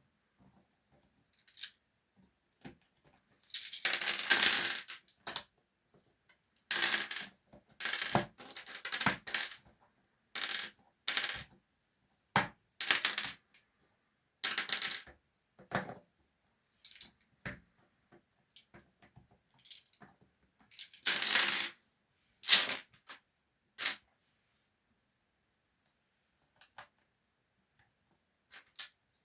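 Irregular bursts of clinking and clattering, as of small hard objects knocking and tumbling together, some lasting a second or more. They stop about five seconds before the end, leaving only a few faint ticks.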